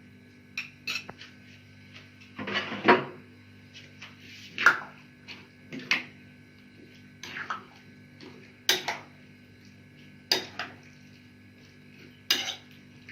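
A spoon clinking and scraping against a bowl in separate strokes every second or two, as fruit is added and stirred into yogurt.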